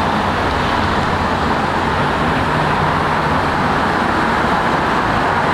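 Steady city traffic noise, an even rushing hum of passing vehicles.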